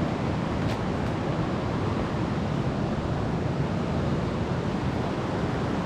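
Wind buffeting the microphone, a steady rushing noise with a low, uneven rumble.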